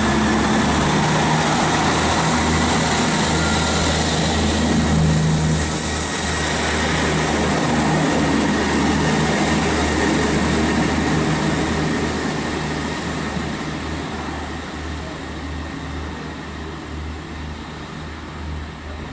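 Class 158 diesel multiple unit's engines running under power as the train pulls out, a steady low drone that fades over the last several seconds as it moves away.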